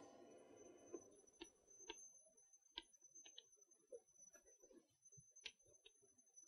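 Faint, irregular ticks of chalk tapping on a blackboard while words are written, several light clicks a second or so apart over near silence.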